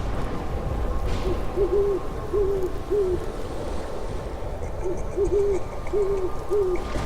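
An owl hooting in two runs of about five short hoots each, the second run starting a little after halfway, over a steady low rumble.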